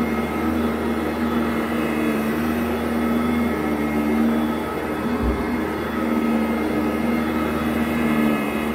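2010 Sanitaire SC899 commercial upright vacuum running steadily over carpet, a motor whine over the rush of air, with one low thump about five seconds in.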